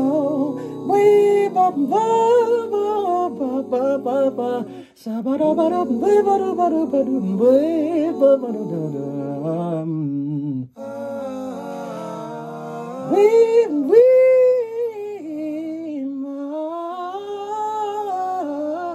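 A male R&B singer's wordless vocal runs, sliding up and down in pitch with brief breaks, over a backing track of sustained chords.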